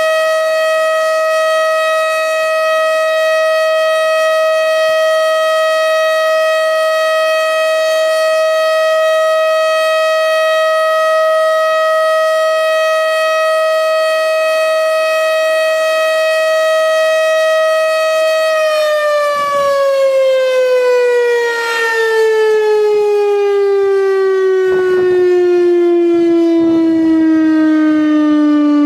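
Federal Signal STH-10B electromechanical outdoor warning siren sounding its steady alert tone. About 18 seconds in, it begins winding down, its pitch falling steadily as it slows.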